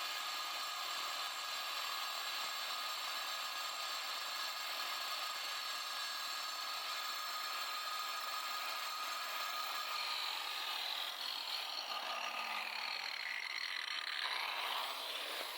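DeWalt 9-inch angle grinder with a diamond blade cutting concrete: a steady high whine over a grinding hiss. About two-thirds of the way in the pitch sags slowly under the cut, then climbs quickly back near the end.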